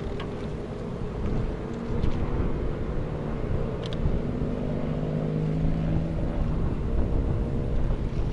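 Strong typhoon wind rumbling and buffeting the microphone, with a low droning hum underneath that wavers in pitch.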